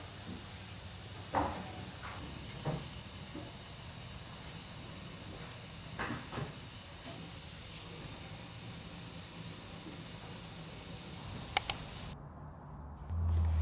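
Steady hiss with a few soft knocks and two sharp clicks near the end, the hiss cutting off suddenly just after the clicks.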